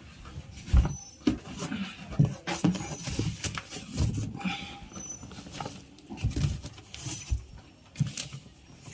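Irregular rustling, scraping and light knocks, as of a mixer grinder and its packaging being handled and unpacked, with no motor running.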